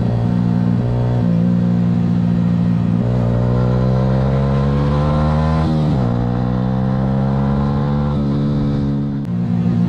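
Sportbike engine heard from the rider's onboard camera, pulling under load with the revs climbing for a few seconds and then dropping sharply at an upshift about six seconds in, with another change in engine note near the end.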